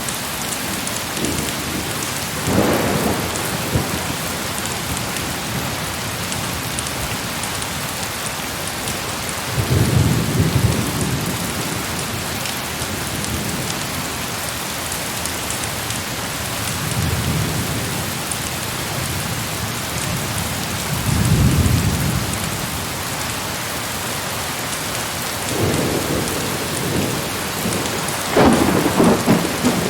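Heavy rain falling steadily, with several rolls of thunder rumbling low through it: one about ten seconds in, others further along, and a louder one near the end.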